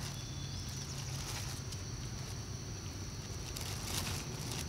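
Steady outdoor background: a constant high insect drone over a low rumble, with a few faint soft clicks.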